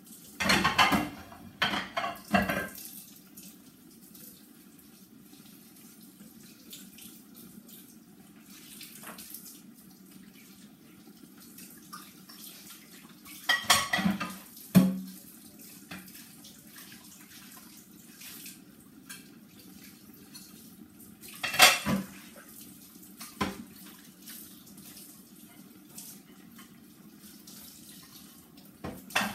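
Plates and cutlery clattering in a kitchen sink during hand dish-washing, over water running from the tap. The clatter comes in a few short bursts: one near the start, one about halfway through, and a sharp one about two-thirds in.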